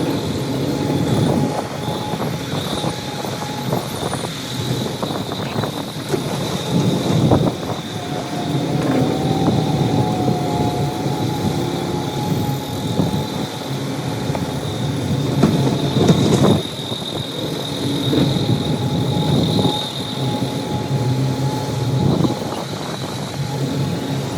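Heavy diesel excavator working: the engine runs steadily under a constant high whine, with a wavering tone in the middle and occasional metallic knocks, the loudest about 7 and 16 seconds in.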